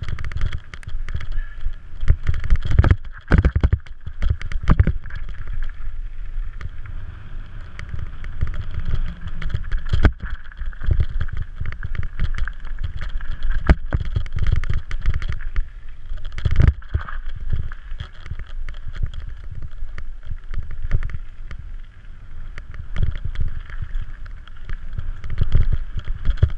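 A mountain bike descending a gravel singletrack, heard through a helmet-mounted camera: wind buffets the microphone with a heavy rumble, the tyres roll over the loose surface, and the bike knocks and rattles often over bumps.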